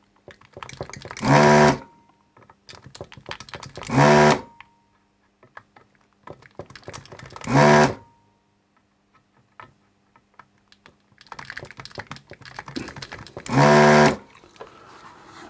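Vacuum pump of a ZD-985 desoldering station buzzing in four short bursts, a few seconds apart, as the desoldering gun's trigger is pulled to suck molten solder off a bridge rectifier's pins. Faint clicks between the bursts.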